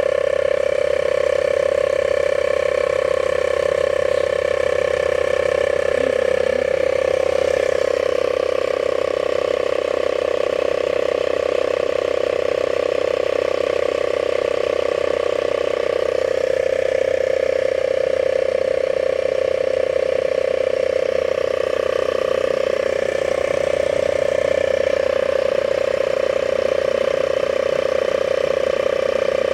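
Toyota Accessories 12-volt portable tyre inflator running steadily as it pumps up a car tyre: a constant mechanical hum with a fainter whine above it.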